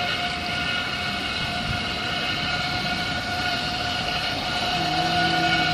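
Whirlpool jets churning and bubbling the water, over the steady drone of the spa's motor.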